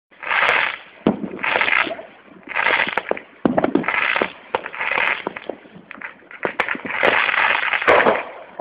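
Fireworks going off: about six bursts of crackle about a second apart, the last one longer, with sharp bangs between them.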